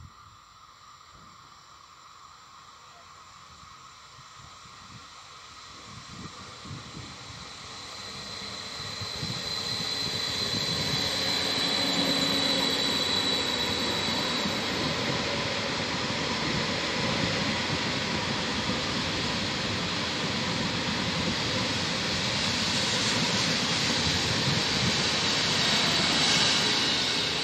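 Electric passenger train passing slowly: an ÖBB Eurocity hauled by a Siemens Taurus (Rh 1216) locomotive. The sound builds over the first ten seconds as the train approaches, then holds as a steady, loud rumble of wheels on rail with a faint high whine over it.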